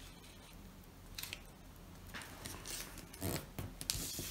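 Sheet of A4 paper being folded by hand: a few brief rustles and scrapes as fingers press the paper down and slide along the fold.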